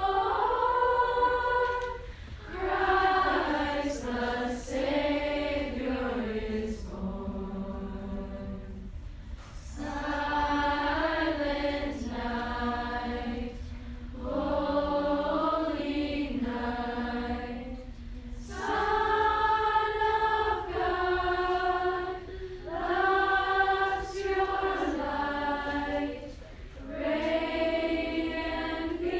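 A group of young voices singing together in slow, held phrases, with short breaths between them.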